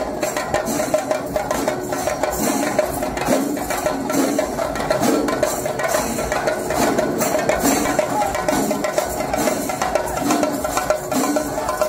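Percussion-led music: rapid, dense drum strokes over a steady held tone.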